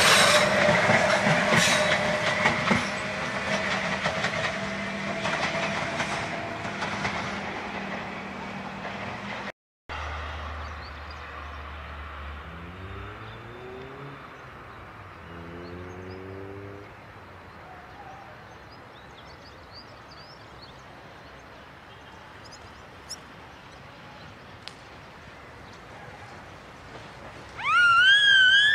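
Metrorail electric multiple-unit commuter train running past on the track, its wheels clattering and fading as it goes. After a sudden cut, a quieter train is heard with a couple of rising motor whines. Near the end, a loud siren starts wailing up and down.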